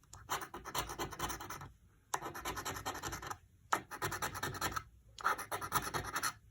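A scratch-off lottery ticket being scratched, rubbing off the coating over the play area: rapid scraping strokes in about four spells with brief pauses between them.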